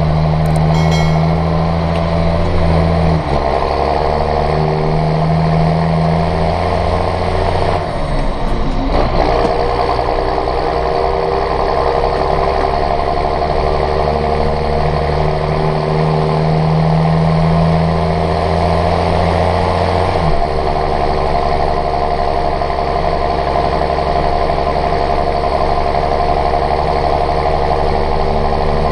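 Tractor engine running steadily, its note shifting a few seconds in, again around nine seconds in, and around twenty seconds in.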